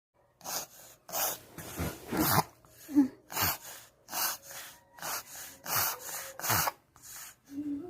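A Shih Tzu reverse sneezing: a rapid series of harsh, noisy inhalations through the nose, about two a second. The dog also has a cold with clear nasal discharge.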